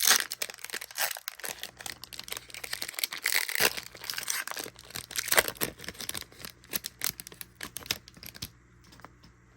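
A trading-card booster pack wrapper being torn open and crinkled by hand: a dense run of crackling that stops shortly before the end.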